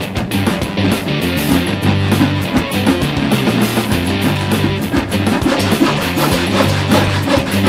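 Background rock music with guitar: loud and steady, with held bass notes and a driving beat.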